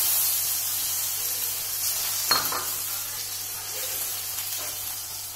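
Hot coconut oil sizzling steadily as a tempering of shallots, dried red chillies and curry leaves fries in it, with a single sharp clink about two seconds in.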